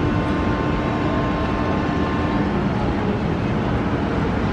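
Steady outdoor rumble over a railway station, with a faint steady hum that fades out about halfway through.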